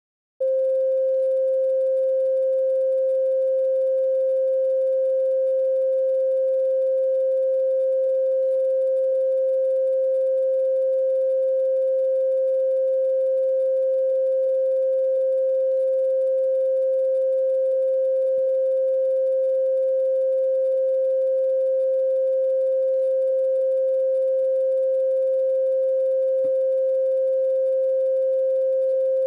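A single steady pure tone, mid-pitched and unchanging, with faint higher overtones; it starts about half a second in and holds without a break.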